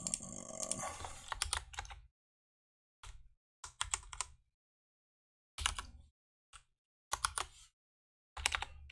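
Typing on a computer keyboard: several short bursts of keystrokes separated by pauses.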